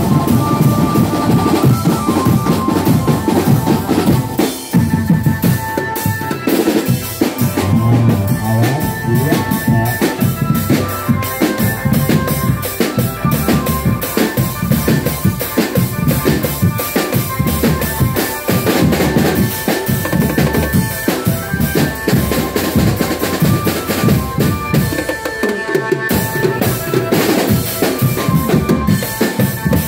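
Street drum band playing a fast, driving rhythm on bass drums, snares and toms, with a melody line running over the drumming.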